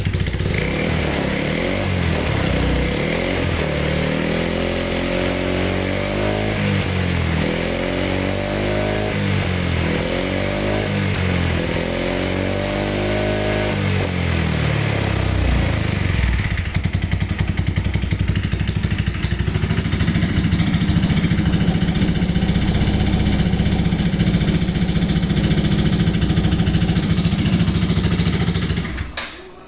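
Yamaha Majesty 125 FI scooter's single-cylinder four-stroke engine running, with about five throttle blips that rise and fall in pitch, then settling to a steady idle before being switched off near the end. The engine runs but is listed as having an abnormal noise.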